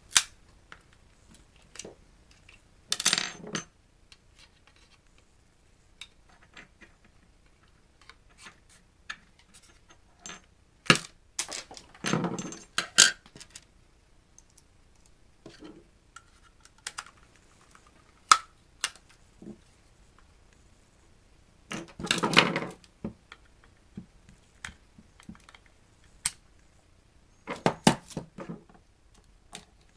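Hand-dismantling of a plastic-cased electronic antenna unit: scattered sharp clicks and knocks of tools and parts, with four clattering bursts of about a second each, near the start, about twelve seconds in, past twenty seconds, and near the end, as small hard metal and plastic pieces rattle and are handled.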